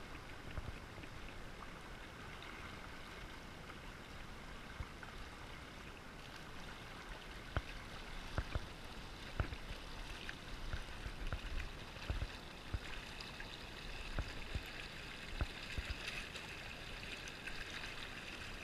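Shallow river current running steadily, with a hooked fish splashing at the surface close by. Sharp splashes and knocks come more often from about seven seconds in as the fish thrashes.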